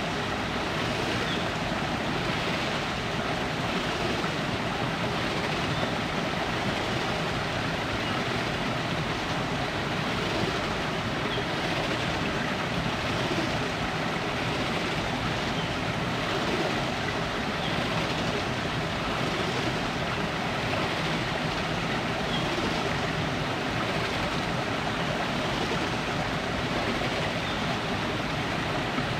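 Shallow river rushing over rocks: a steady, unbroken rush of water.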